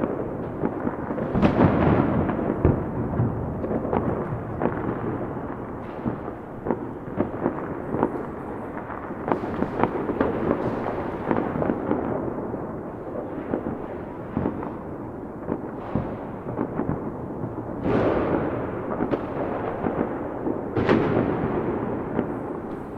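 Fireworks going off continuously: a dense crackle of many sharp pops with several louder bursts, about one and a half seconds in and twice near the end, each followed by a rumbling echo.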